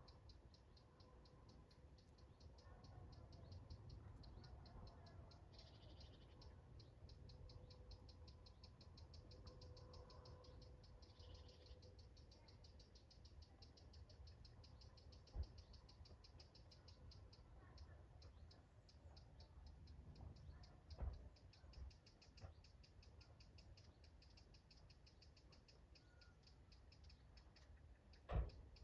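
Near silence: faint outdoor garden ambience with a steady, rapid high ticking several times a second, and a few soft knocks, the loudest near the end.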